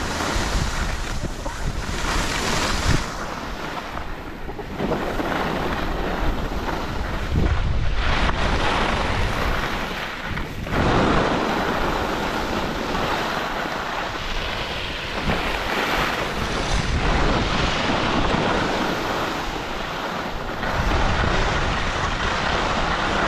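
Wind buffeting the camera microphone of a skier going downhill, with the hiss and scrape of skis on groomed snow swelling and easing every few seconds through the turns.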